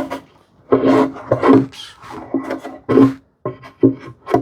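Wooden parts of a tight, almost friction-fit joint being pushed together and worked apart by hand, the wood rubbing against wood in four or five short, uneven strokes.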